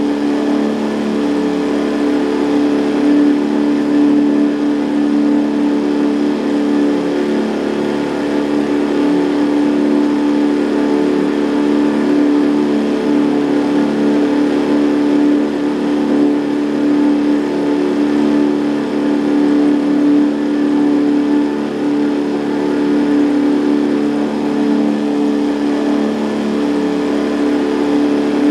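Boat's outboard motor running steadily, its drone holding one even pitch with a hiss of noise over it.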